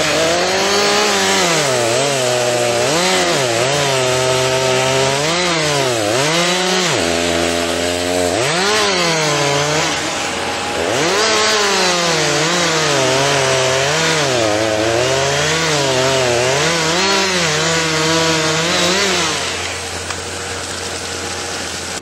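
Two-stroke chainsaw cutting into a loblolly pine, its engine pitch dipping and climbing back over and over as the chain loads in the cut, then easing off near the end.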